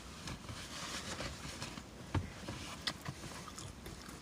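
Quiet room noise with a low hum and a few short, soft clicks, the clearest about two seconds in and another near three seconds.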